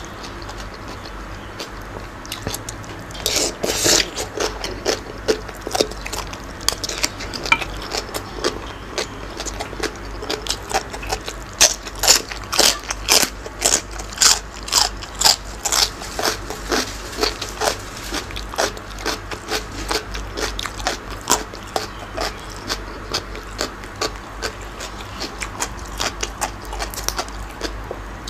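Close-up mouth sounds of a man eating a spicy raw shrimp and seafood salad: wet smacking and chewing, many quick clicks a second, starting a few seconds in and densest around the middle.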